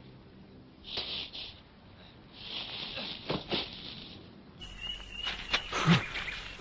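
Kung fu film fight sound effects: a few scattered sharp hits and soft swishes over a faint hiss, with the track cutting to a brighter sound near the end.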